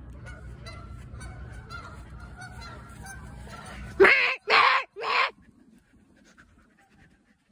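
A flock of geese honking: many faint calls over a low rumble at first, then three loud, close honks about four seconds in.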